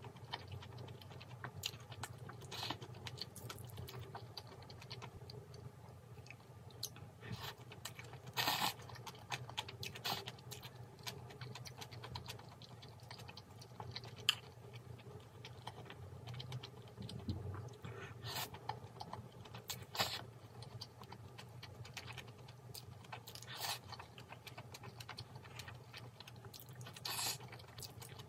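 Close-miked chewing of spicy stir-fried webfoot octopus and noodles, with small wet clicks throughout and a louder short mouth or utensil sound every few seconds.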